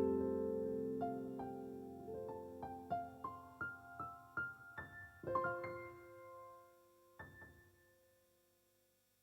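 Slow, gentle solo piano ending a piece: a held low chord fades while single notes climb upward one after another, a chord rings out about five seconds in, and one last high note sounds about seven seconds in before the sound dies away.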